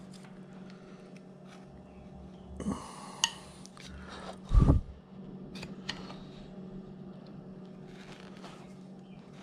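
Carving knife making small cuts in a wooden figure: faint scattered clicks and short scrapes of the blade in the wood over a steady low hum, with a dull thump about halfway through.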